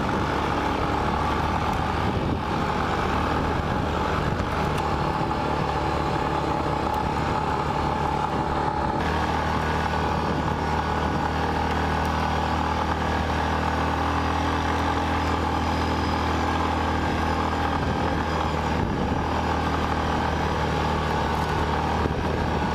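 Single-cylinder 450 ATV engine running steadily under way, with wind on the microphone; its note changes about nine seconds in.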